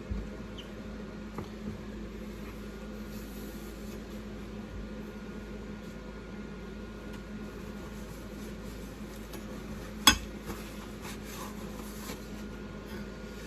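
Room tone with a steady low hum, a few faint ticks, and one sharp click about ten seconds in.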